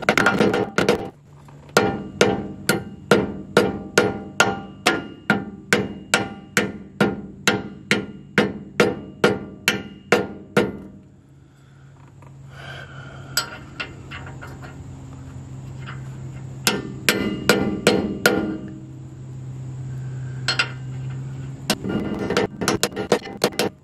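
Rawhide hammer tapping a freezer-chilled new steel bearing race into the lower king pin bore of a Dana 60 steering knuckle: a steady run of blows, about two to three a second, for roughly ten seconds. After a pause, two shorter runs of blows follow, striking the old race used as a driver to seat the new one fully.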